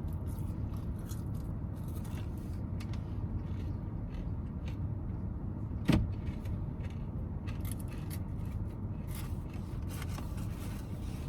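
Steady low rumble of a car heard from inside the cabin, with scattered small clicks and rustles and one sharp knock about six seconds in.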